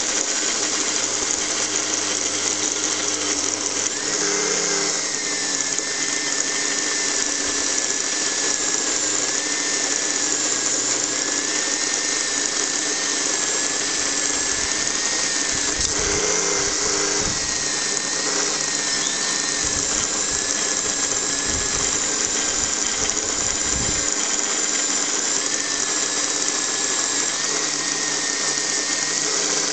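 Small electric bench grinder running steadily while brass miner's lamp parts are pressed against its buffing wheel. A wavering whine joins about four seconds in and carries on.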